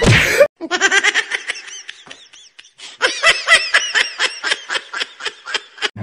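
A short loud downward swoop, then laughter in rapid ha-ha pulses, about five a second, in two runs with a short pause around two seconds in.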